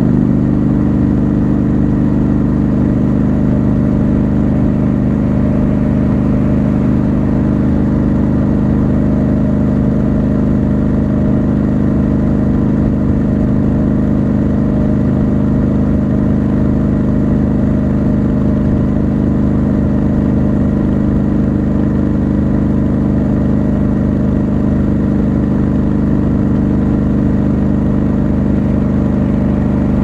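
Triumph Scrambler motorcycle engine running at a steady cruise, heard from the rider's seat: an even engine drone that holds one pitch, with no gear changes or revving.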